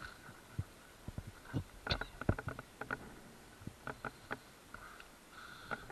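Irregular dull thumps of footsteps on a muddy, grassy lake bank, mixed with knocks from handling the phone, clustered about two seconds in. A faint steady high tone comes and goes behind them.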